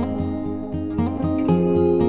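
Background music: plucked acoustic guitar notes over a steady bass pulse.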